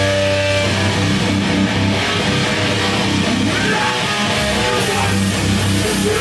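Hardcore band playing live, electric guitar to the fore: a held chord rings until about half a second in, then the band moves into a dense, loud riff.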